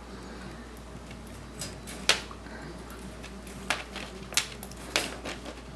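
Sharp clicks and light rattles of a wire dog crate as a Shetland sheepdog inside pulls a rope in through the bars with its mouth and paws. The loudest knock comes about two seconds in, followed by several smaller ones spaced roughly half a second to a second apart.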